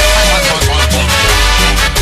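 Romantic cumbia song playing without vocals, with a steady bass line under regular percussion and a melody line near the start.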